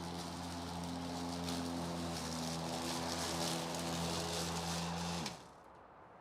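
Battery-powered lawn mower running steadily, a hum with a hiss over it, then switched off about five seconds in, its pitch falling briefly as the blade spins down.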